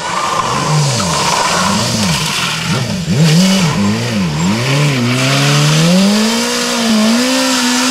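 BMW S1000RR sportbike's inline-four engine revving up and down again and again while the spinning rear tyre squeals and hisses in a smoky burnout. About five seconds in the revs climb and are held at a steady high pitch.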